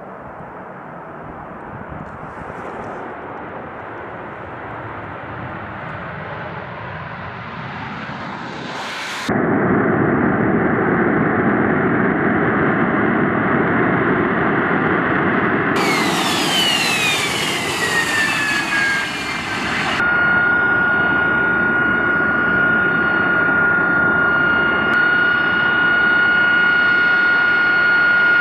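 AV-8B Harrier II jets and their Pegasus turbofan engines: a jet rumble swelling during the take-off run, then, after a sudden cut about nine seconds in, louder steady jet noise. Past the middle a high whine falls in pitch, and then a steady high turbine whine holds to the end.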